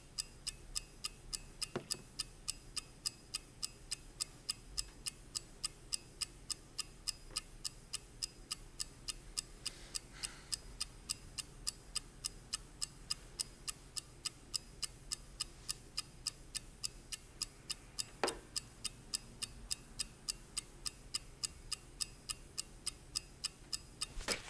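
Clock ticking steadily and quickly, about three ticks a second, with a couple of single knocks in between.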